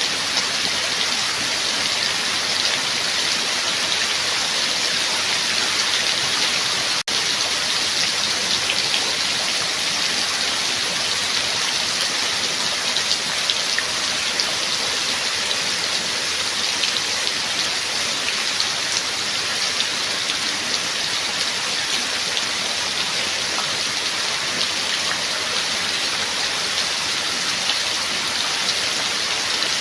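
Steady rain falling: an even, dense hiss with scattered individual drop ticks. A split-second dropout in the sound comes about seven seconds in.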